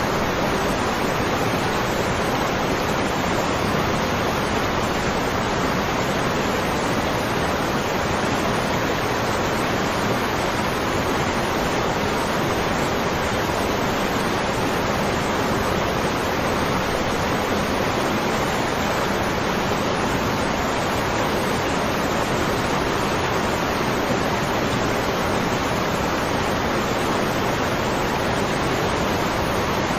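Waterfall: a steady, unbroken rush of falling water with no change in level.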